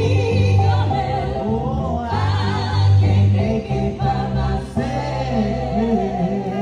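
Gospel song: voices singing through microphones over an electric keyboard playing held low bass notes and chords.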